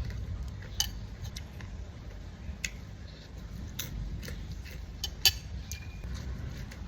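Eating utensils clinking against a dish: a few separate sharp clicks, the loudest about five seconds in, over a steady low rumble.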